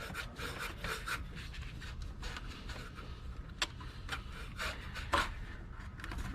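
Rubbing and scraping of hands and tools working at radiator hose connections under the hood, with a few sharp clicks, the clearest about three and a half and five seconds in.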